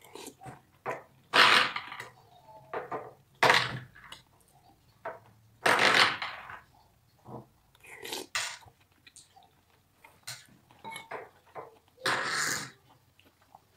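Slurping noodle soup: about five loud slurps a couple of seconds apart, the one about six seconds in the longest. Small clicks of a metal spoon against a ceramic bowl, and chewing, fill the gaps between.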